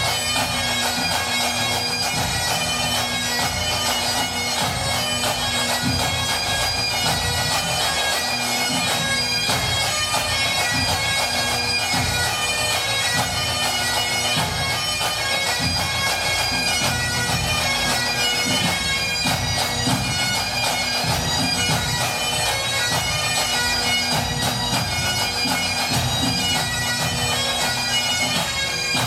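Pipe band playing: Highland bagpipes carry a tune over their steady drones, with a fast patter of drum strokes underneath.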